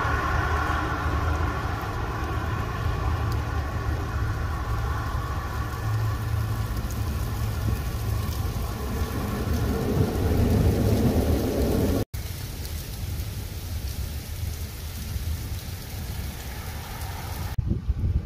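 Thunderstorm rain falling on a street, with car tyres hissing on the wet road as cars pass and a low rumble swelling twice. The sound breaks off abruptly about twelve seconds in and comes back quieter.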